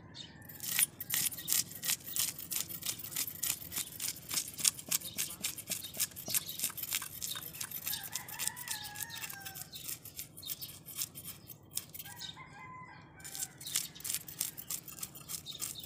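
A knife scraping scales off a fish on a wooden block in quick repeated strokes. A rooster crows twice in the background, about halfway through and again a few seconds later.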